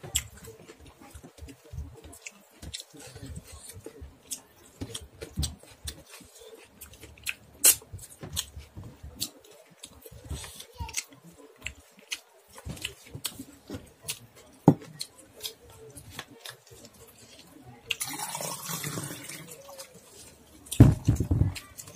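Fingers wiping the last dal off a stainless steel plate and being licked clean: a run of sharp wet clicks and smacks, a longer noisy stretch about three-quarters of the way through, and a low thump near the end.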